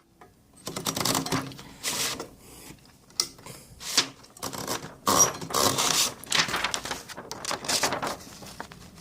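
Typewriter mechanism being worked by hand: a run of irregular mechanical rasps and clicks of differing lengths, rather than a steady run of key strikes.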